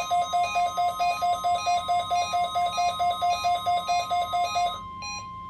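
NOAA Weather Radio's steady 1050 Hz warning alarm tone, broadcast as the weekly test. Over it, a weather alert radio receiver's alarm, set off by the tone, beeps rapidly at about five beeps a second. Near the end the rapid beeping stops, leaving the steady tone with a few slower beeps.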